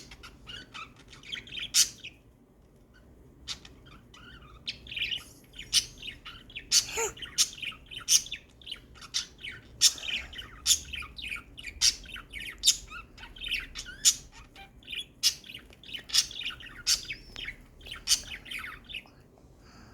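Small birds chirping and squawking in a quick, busy run of short, sharp calls, which stops shortly before the end.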